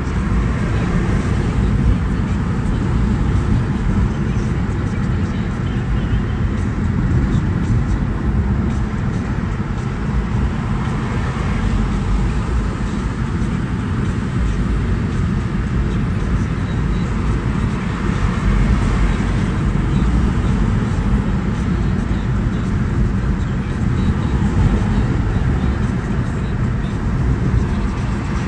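Steady low rumble of road and engine noise heard from inside a car's cabin while driving in highway traffic.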